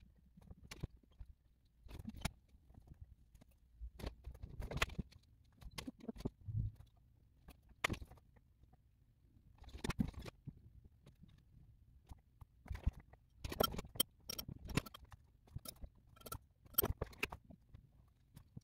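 Paperback book being handled and its pages turned: short paper rustles and soft taps in clusters a few seconds apart, fairly faint.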